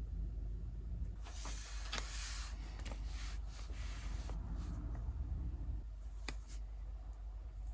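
Soft scraping and rubbing with several sharp clicks, over a steady low hum.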